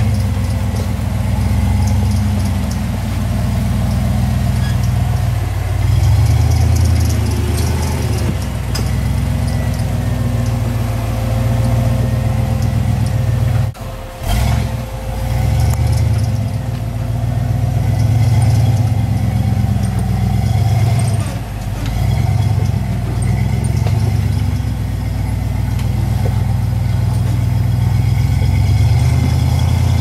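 Engine of a heavily modified Toyota FJ40 rock crawler on big tyres, revving up and down as it crawls over boulders and ledges. There is a short break about halfway through.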